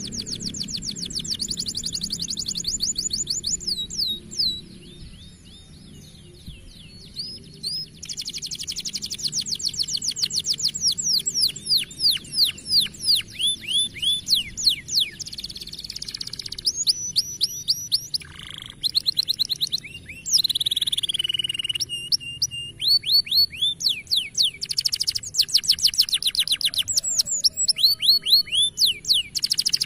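Domestic canary singing: fast trills of one high note repeated many times a second, the phrase switching to a new note type every few seconds, with short pauses between phrases.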